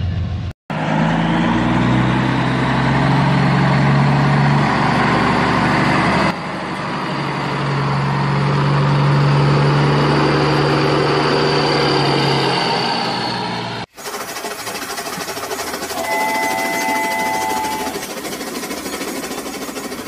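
Toy vehicles running: an engine-like drone with a high whine, broken by a cut about six seconds in and stopping suddenly after about fourteen seconds. A toy train's running noise follows, with a short electronic horn tone lasting about two seconds.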